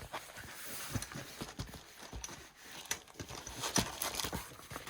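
Handling noises from unpacking a kit's contents: a series of irregular light knocks and taps, with faint rustling in between.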